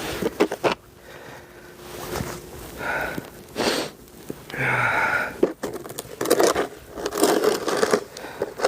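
Snow shovel scraping and knocking in snow, in irregular strokes with sharp clicks about half a second in, along with heavy breathing from the tired shoveller.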